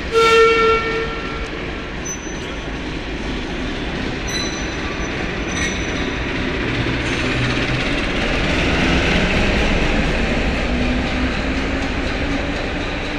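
British Rail Class 08 diesel shunter gives a short horn blast at the start, then its diesel engine runs steadily as it rolls slowly past, with a few brief high squeals from the wheels in the first half.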